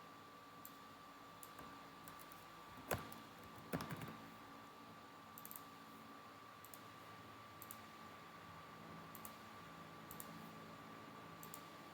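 Faint clicking of a computer mouse and keyboard, with two sharper clicks about three and four seconds in, over a faint steady high-pitched tone.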